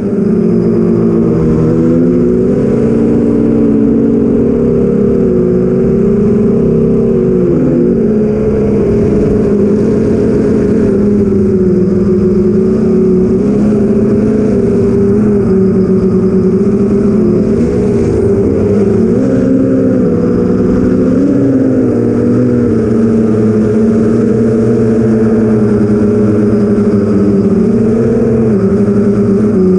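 Eight-inch FPV quadcopter's four brushless motors (BrotherHobby Avenger 2812, 1115kv) spinning Master Airscrew 8045 props in flight, heard from the onboard camera. It is a steady multi-tone hum whose pitch keeps wavering up and down with throttle changes, dipping and swooping a few times.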